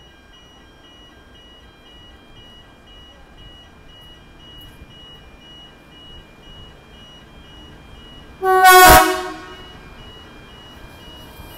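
A horn gives one short, loud toot about eight and a half seconds in, over a faint electronic beeping that repeats steadily.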